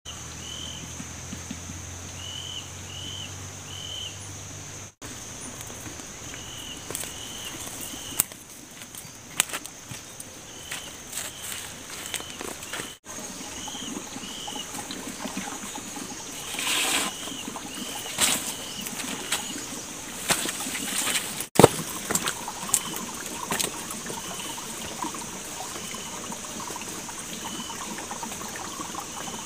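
Forest ambience: a steady high-pitched hum with a bird's short chirps repeated in quick runs, and scattered clicks. In the last part a shallow forest stream trickles over stones and leaf litter.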